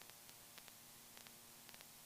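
Near silence: a faint steady hiss with a few very faint ticks.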